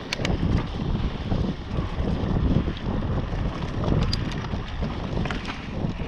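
Mountain bike rolling fast along a dirt forest trail: wind buffeting the microphone and tyre noise make a steady rumble, with scattered sharp clicks and rattles from the bike over bumps.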